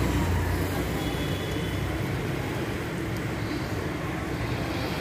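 Steady street traffic noise, a low motor-vehicle rumble with no clear single event.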